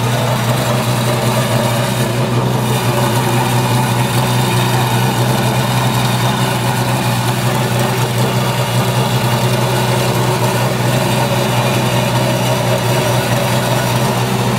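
Radical SR8LM race car's V8, built from two Suzuki Hayabusa motorcycle engines, idling loud and steady while the car stands still.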